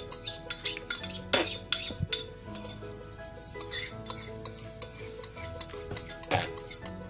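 A metal spoon scraping and clinking against the inside and rim of a bowl as a thick mixture is scraped out into a pot of soap batter, with background music.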